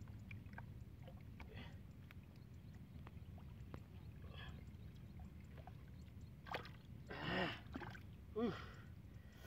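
Faint sloshing of hands groping in muddy water in a small hole, over a low steady rumble. Near the end come two short vocal sounds from a man, about a second apart, as a fish is grabbed.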